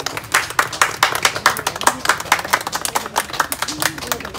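A small crowd applauding, many hands clapping in a dense, uneven patter.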